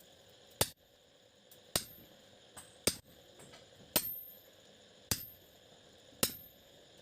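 Blacksmith's hammer striking steel on an anvil while forging, six sharp ringing blows about once a second.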